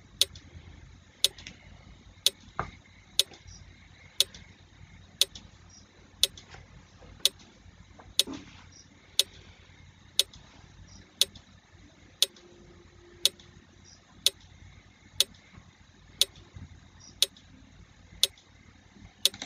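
Quiz countdown timer sound effect ticking like a clock, one sharp tick about every second, steadily through the countdown.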